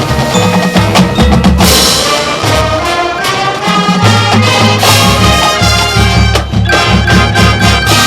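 Marching band playing loudly: brass chords and melody over drums and low brass.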